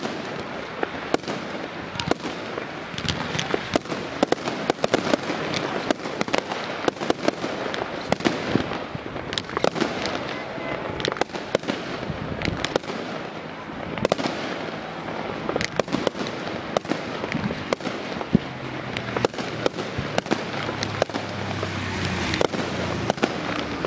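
Aerial fireworks display: shots going up and bursting, with sharp bangs several times a second over continuous crackling.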